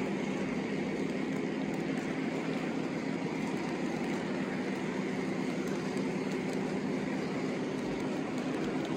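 O-gauge model freight cars rolling past on three-rail track: a steady, even rumble of metal wheels on the rails.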